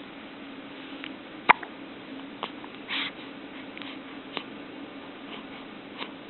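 Newborn baby hiccuping: short, sharp hiccups at irregular intervals, the loudest about a second and a half in and fainter ones after, over a steady low hum. The hiccups come from a newborn's still-immature diaphragm, which the midwife called normal.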